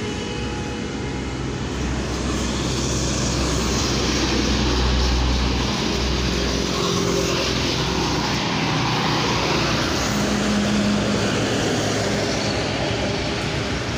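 Road traffic going by: a heavy truck passes close, its engine rumble and tyre noise building to a peak about five seconds in, then easing, with other vehicles passing.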